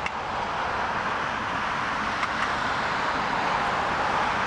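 Distant jet engines of an Airbus A330-343X running at takeoff power during its takeoff roll, heard as a steady, even rushing noise.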